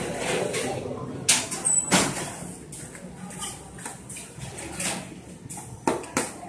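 Scattered sharp knocks and clatter of hand work in a busy food workroom, over faint background voices.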